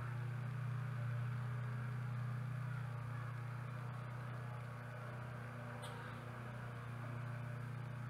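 A steady low hum with no change in pitch, and a single faint click about six seconds in.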